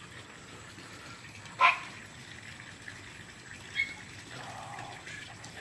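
A dog barks once, short and sharp, about one and a half seconds in, over a steady background hiss.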